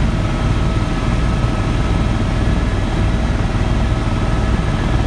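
Helicopter in flight heard from inside the cabin: steady, loud rotor and engine noise with a fast low throb and a few faint steady whining tones above it.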